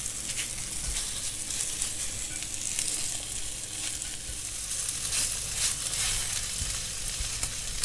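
Flour-dusted diced beef sizzling as it sears in a hot cast iron tagine base, a steady frying hiss with small crackles. A wooden spatula stirs and turns the pieces.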